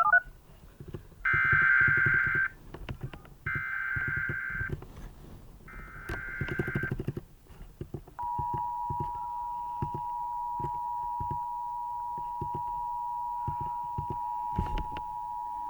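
Emergency Alert System header: three bursts of digital data chirps, about a second each, then about eight seconds in the steady two-tone attention signal starts and holds, announcing a severe thunderstorm warning. Irregular low clicks and crackle run underneath.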